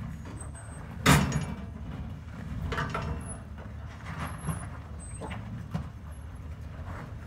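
Pickup truck rock crawling at low revs, its engine a steady low rumble, with a loud sharp knock about a second in and several smaller knocks and clunks after it.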